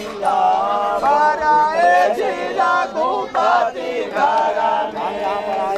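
Several voices singing together in a chant-like melody, phrase after phrase.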